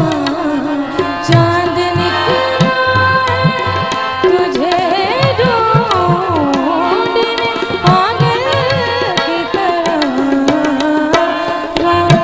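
Tabla keeping a steady rhythm under an ornamented melody line that slides between notes, in South Asian light-classical style.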